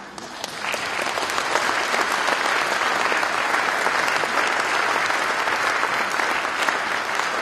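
Audience applauding, a dense patter of many hands clapping that swells up over the first second and then holds steady.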